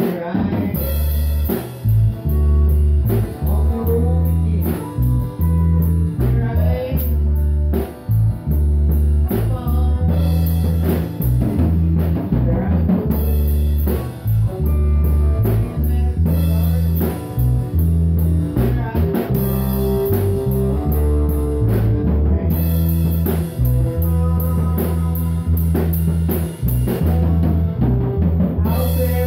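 Live band playing: an electric bass line, a strummed acoustic guitar and a drum kit with steady cymbal hits.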